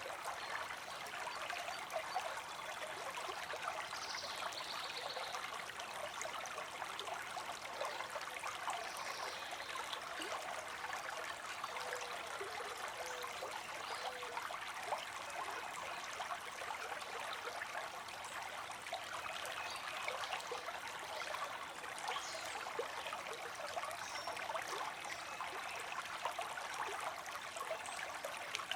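Creek water streaming steadily, with fine splashing and trickling.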